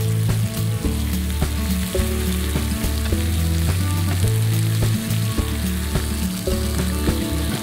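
Meat and sausages sizzling on a hot cast-iron griddle pan, with a few clicks as metal tongs turn the food, under background music with a stepping bass line.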